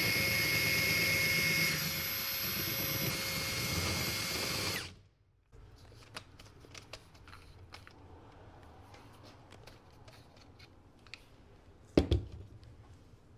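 Cordless drill spinning a paddle mixer in a gallon can of paint at low speed: a steady whine that stops abruptly about five seconds in. After that come faint handling clicks and one sharp knock near the end.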